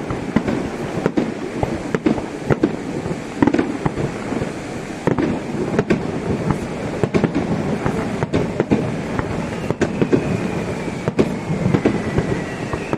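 Fireworks display: aerial shells bursting in a rapid, irregular series of sharp bangs and crackles over a continuous rumble. A faint high tone falls slowly in pitch near the end.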